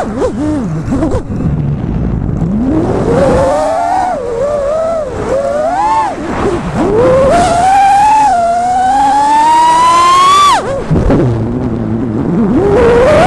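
FPV quadcopter's brushless motors whining, the pitch swooping up and down with the throttle. It climbs steadily for several seconds, drops sharply on a throttle cut about two-thirds of the way through, then rises again near the end.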